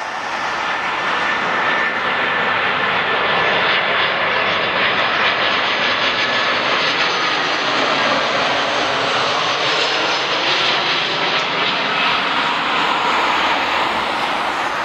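Airbus A320-family jet airliner on final approach with landing gear down, its twin turbofan engines running at approach thrust as it passes close by. A steady loud rushing swells over the first couple of seconds, with a thin high whine on top through the first half.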